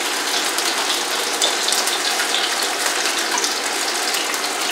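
Soaked rice noodles sizzling steadily in a hot oiled frying pan over high heat, with faint crackles.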